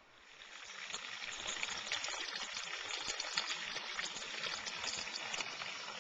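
Floodwater rushing and splashing, a steady spattering wash that swells up over the first second.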